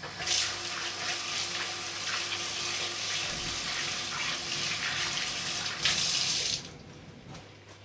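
Kitchen tap running onto hands and into a stainless steel sink as soapy hands are rinsed off; the water is shut off about six and a half seconds in.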